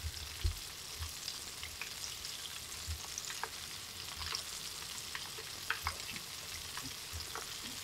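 Kushiage skewers deep-frying in hot oil: a steady sizzle with many small scattered crackles and pops.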